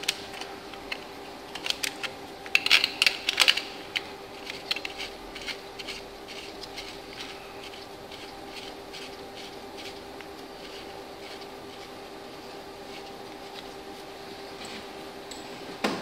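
Light metallic clinks and rattles of a timing chain and its guide being handled and set in place on an engine, loudest in the first few seconds, followed by a run of faint even ticks. A steady hum runs beneath.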